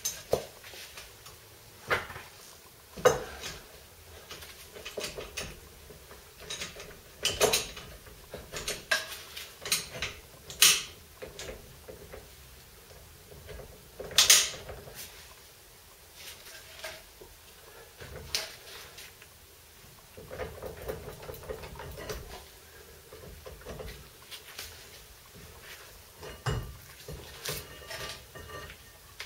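Irregular metallic clinks and knocks as a VW T25/T3 front brake caliper is rocked and worked off the brake disc, with the loudest clanks a few seconds in and about halfway through.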